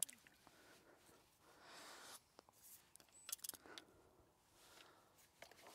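Near silence with faint scattered clicks and scratchy rustles from an angler's hands on his bait trays and tackle, with a small cluster of clicks a little past halfway.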